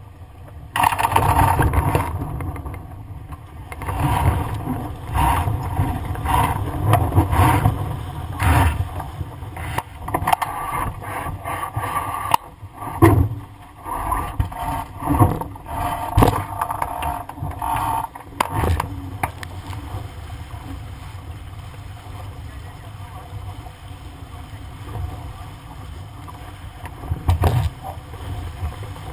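Wind buffeting the microphone and water rushing along the hull of a sailing dinghy under way, gusty and loud with knocks and bangs from the boat and rigging. About two-thirds of the way through it eases to a steadier rush, with a short burst of knocks near the end.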